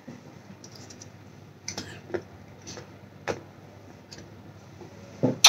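Quiet room tone with a few faint, scattered clicks and taps, then one sharper click near the end.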